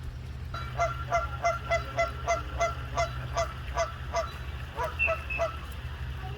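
A bird calling in a rapid run of about a dozen short, evenly spaced calls, about three a second, then a few more shortly after a brief pause, over a steady low rumble.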